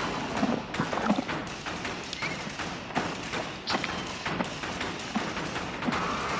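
Irregular thuds and taps, many in quick succession over a steady noisy bed, with a few brief high-pitched squeaks.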